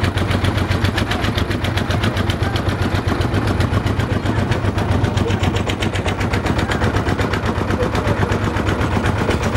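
Small single-cylinder boat engine, a stationary-type motor mounted on a wooden lake boat, running steadily with a loud, rapid, even put-put of exhaust beats.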